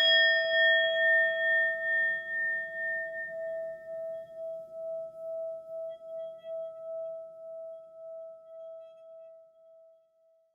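A single strike on a bell, ringing on one steady tone with higher overtones that die away within a few seconds. The ring pulses slowly in loudness as it fades out over about ten seconds.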